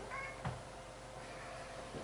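A faint short pitched cry, like an animal's meow, once near the start, then a light click about half a second in, over a faint steady hum.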